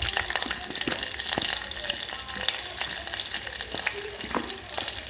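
Hot oil sizzling in a tempering of mustard seeds, cumin and turmeric, with many irregular sharp crackles as the seeds pop.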